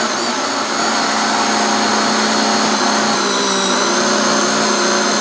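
Electric countertop blender running steadily at speed, its motor giving a constant whine and hum as it mixes thin liquid batter of eggs, water and oil.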